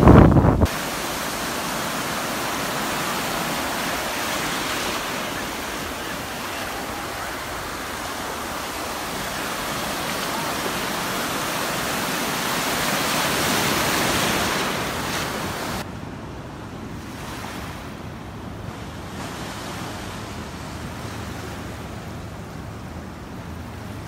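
Ocean surf breaking and washing onto a sandy beach, a steady rushing noise that swells about two-thirds of the way through. It then cuts suddenly to quieter, gentler water lapping at the shore. A short loud gust of wind on the microphone opens it.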